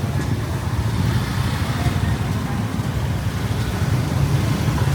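Steady road traffic noise: a continuous low rumble of passing vehicles with no distinct events.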